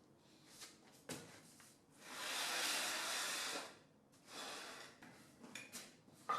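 A hiss of rushing air, starting about two seconds in and lasting about a second and a half, with a few faint clicks and knocks around it.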